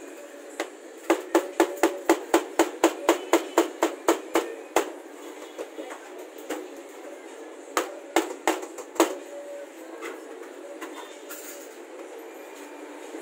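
Cleaver chopping napa cabbage on a plastic cutting board: a quick, even run of about fifteen chops at roughly four a second, starting about a second in, then four more chops after a pause of about three seconds.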